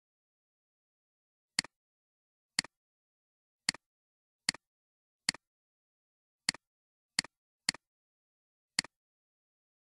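Computer mouse clicks, nine of them at irregular intervals, each a quick double click of button press and release.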